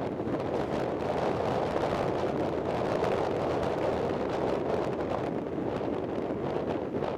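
Wind buffeting the microphone: a steady rushing noise with no clear pitch.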